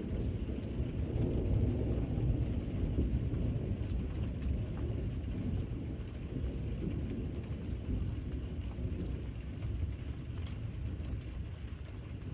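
Thunderstorm: a low rolling rumble of thunder that swells a second or two in and slowly eases, over steady rain.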